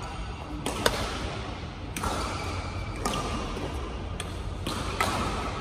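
Badminton rackets striking a shuttlecock in a doubles rally: a series of sharp hits, about one a second, echoing in a large sports hall.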